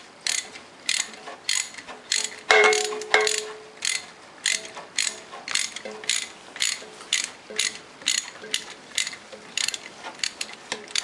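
Sharp clicks repeating steadily about twice a second. A louder click with a short ringing tone comes about two and a half seconds in.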